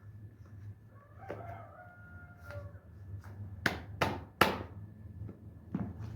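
A rooster crowing, then three sharp knocks in quick succession and a fainter one near the end.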